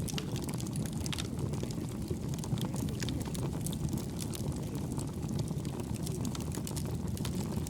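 Wood fire burning, with frequent irregular sharp crackles and pops over a steady low rumble.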